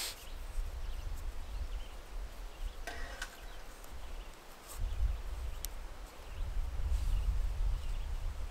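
Nylon cord rustling and ticking as it is worked into a knot through a tree strap, with a brief rasp about three seconds in and a sharp click a little later, over a low rumble that swells in the second half.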